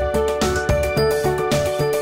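Background music with a steady beat and a melody of held notes.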